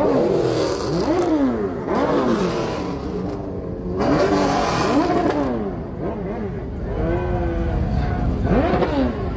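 An engine revved again and again, its pitch rising and falling about once a second, and held briefly at a higher pitch about seven seconds in.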